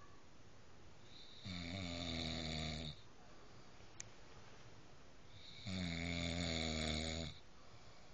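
Snoring: two long, drawn-out snores about four seconds apart, each lasting about a second and a half. A brief faint click falls between them.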